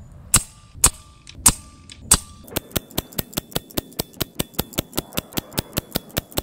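A .22 Daystate Pulsar PCP air rifle firing a string of shots: four sharp cracks about half a second apart, then a fast, evenly spaced run of cracks, about six a second.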